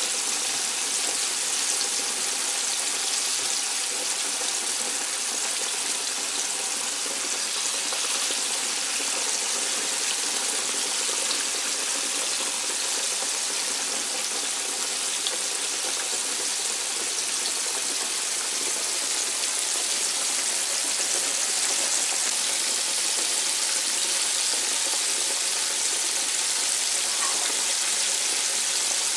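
Flour-coated Banga Mary fish frying in a pan of hot oil, a steady, even sizzle of bubbling oil.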